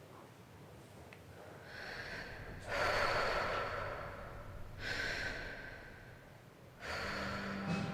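A person breathing loudly, about four long, noisy breaths in a row.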